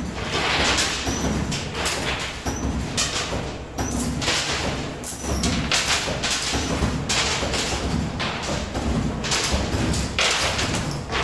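Coin pusher machine in an arcade: an irregular run of thuds and clattering bursts, roughly one a second, over a steady low rumble.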